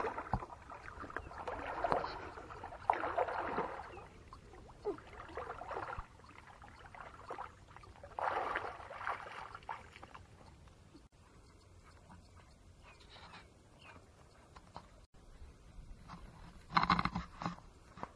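Water splashing and sloshing in irregular bursts as a person wades through a shallow muddy pond. A short, louder burst of noise comes near the end.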